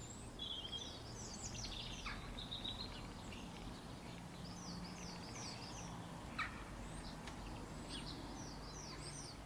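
Birds chirping over a soft, steady low hum: several quick series of short, falling high chirps, with a few single calls in between.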